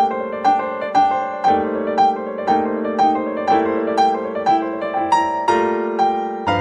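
Calm piano music: single notes struck about twice a second over held chords.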